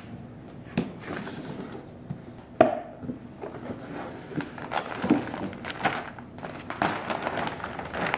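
Indoor handling noise: scattered knocks, clicks and shuffling over room sound, with one loud thud about two and a half seconds in.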